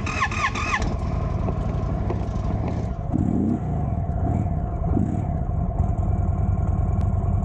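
Motorcycle engine idling steadily, a loud, even low rumble close to the microphone, with two short rises in pitch about three and five seconds in.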